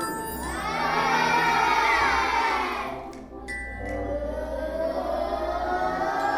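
Children's voices used as sound effects: a chorus of many held tones for about three seconds, a short drop-out, then voices gliding steadily upward in pitch.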